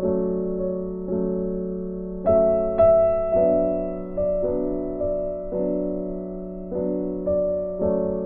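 Background music: slow piano chords, each struck and left to ring before the next.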